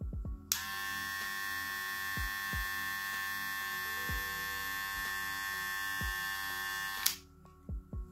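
Cordless hair clipper (an AliExpress Wahl Cordless Senior) switched on and running at full speed for an RPM test, a steady high-pitched whine of motor and blade. It starts suddenly about half a second in and is switched off about seven seconds in.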